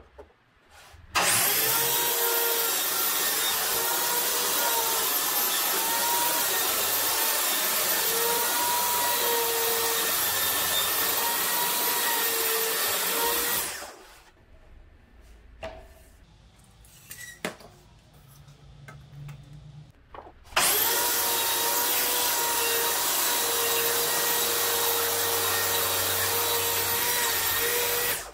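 Festool plunge-cut track saw running along its guide rail and cutting across a lattice of thin wooden slats, in two passes: one starting about a second in and lasting about twelve seconds, the other starting about twenty seconds in and stopping just before the end. Its motor whine holds a steady pitch that wavers slightly as the blade cuts; between the passes there are only light knocks and handling.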